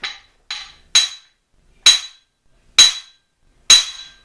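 Hammer striking a second hammer held against the rear of a small-block Chevy crankshaft: two light taps, then four sharp, ringing metal-on-metal blows about a second apart. The blows jog the crank to bring the thrust bearing halves flush.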